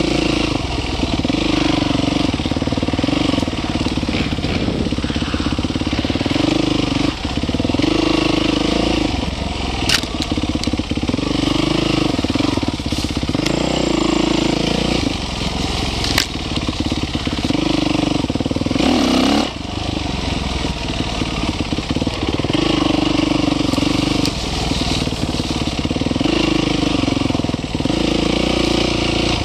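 Dirt bike engine revving up and falling back again and again as the throttle is worked on a trail ride, with wind and trail noise. A few sharp knocks stand out, about ten and sixteen seconds in.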